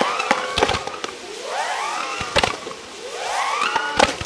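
Fireworks battery firing in waves about every two seconds: clusters of rising whistles, each wave punctuated by sharp bangs and crackle.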